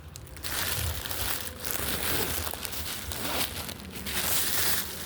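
Rustling and rubbing handling noise on the phone's microphone as it is moved about, coming in uneven surges from about half a second in.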